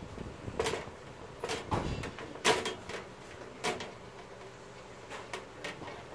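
Hands pressing a new LED backlight strip onto its aluminium heatsink on the TV's sheet-metal back chassis, giving irregular clicks and light knocks, with the loudest knock about two and a half seconds in.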